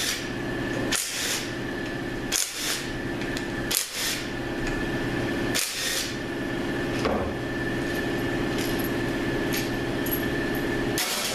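Short bursts from a pneumatic tool spinning out the front pump bolts of an automatic transmission, about five bursts in the first six seconds and one more near the end, over a steady hum.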